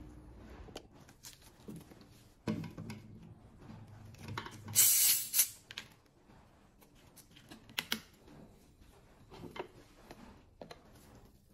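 Plastic containers are handled on a wooden table: scattered clicks and knocks, a thud about two and a half seconds in, and a short loud hissing rush about five seconds in.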